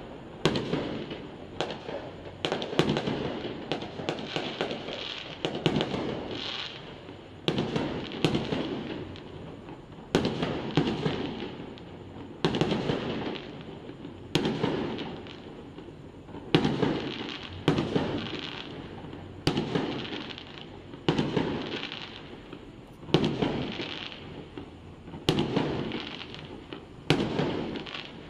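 Aerial fireworks going off in a steady run: a sharp bang about every second or two, each trailing off in a crackle, with smaller pops between the big bursts.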